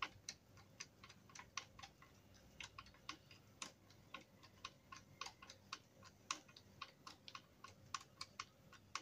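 Hand screwdriver turning a screw into a metal hinge bracket on a wooden cot's corner post: a faint, uneven run of small clicks, about three or four a second.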